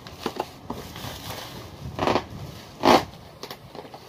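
Plastic bubble-wrap packaging crinkling and rustling as it is handled and pulled apart, with two louder crackles about two and three seconds in.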